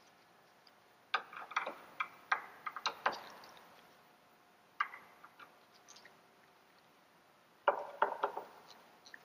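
Hand screwdriver clicking and scraping against screw heads and the light's mounting clips as the screws are gently snugged down. The clicks come in short clusters: a run from about one to three seconds in, a single click near five seconds, and another cluster near eight seconds.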